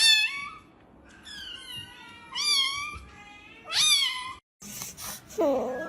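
A cat meowing again and again: several high meows with sharp upward-sliding pitch, about a second apart, the loudest at the start and near the middle. After a brief cut to silence comes a lower, swooping cry near the end.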